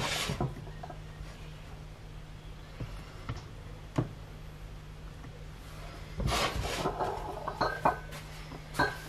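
Kitchen handling sounds: scattered clinks and knocks of bottles and utensils being picked up and set down, with a busier clatter about six seconds in, over a steady low hum.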